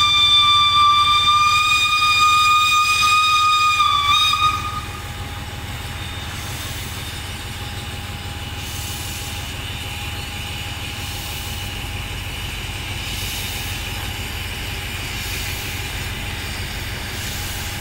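Steam locomotive whistle blowing one long, steady note that dips slightly and cuts off about four and a half seconds in. It gives way to a steady hiss of steam over a low rumble.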